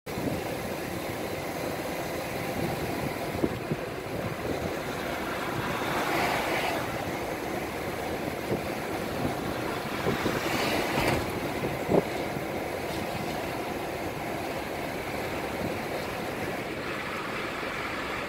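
Car driving at speed on a dual carriageway: steady road and tyre noise, with a few light knocks and two brief swells of louder noise, about six and eleven seconds in.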